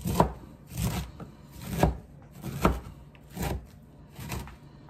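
Chef's knife chopping broccoli florets on a wooden cutting board: six separate chops, about one a second, each a knock of the blade on the board.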